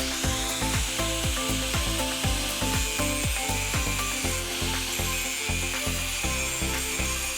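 A steady abrasive rubbing hiss of a tool working the knife, over background music with a steady, bass-heavy beat.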